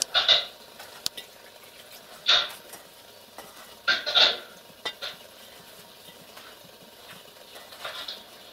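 A cat licking its fur while grooming: a few short, raspy scraping bursts at irregular intervals, with a double one about halfway through.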